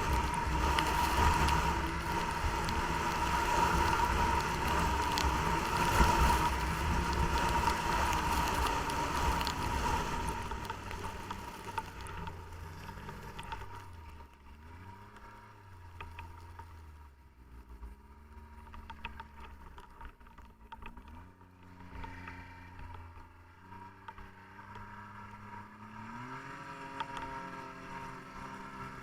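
Snowmobile engine running, its pitch rising and falling as the throttle changes. Wind and snow noise are loud for the first ten seconds or so, after which the engine is quieter and its pitch swings are clearer.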